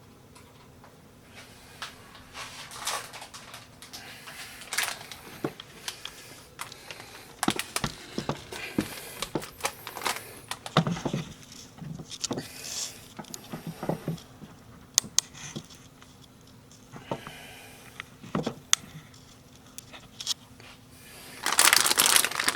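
Scattered clicks, taps and short rustles of hands handling computer hardware and its packaging, then loud crinkling of packaging starting near the end.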